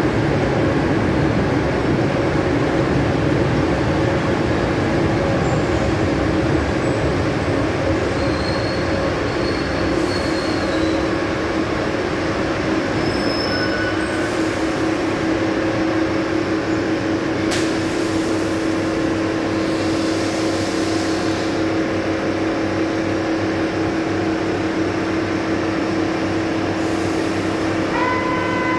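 Fiat-Materfer subway train running into the platform and slowing to a stop, its rumble easing, then standing with a steady hum and a few brief hisses. A steady electronic tone comes on near the end.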